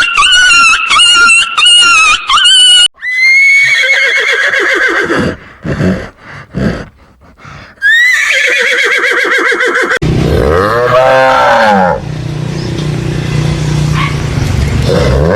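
A cat meowing several times in quick succession, then a horse whinnying twice, a high call that falls in pitch with a quavering tremor. After that comes a lower, deeper animal call that rises and falls in pitch.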